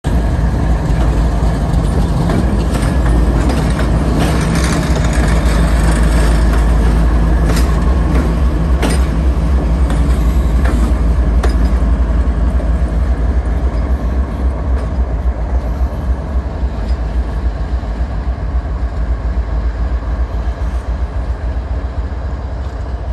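CSX GE diesel-electric locomotives rolling slowly past with their diesel engines running in a steady low rumble. There are several sharp metallic clanks in the first half, and the sound eases off a little in the second half as the units move on.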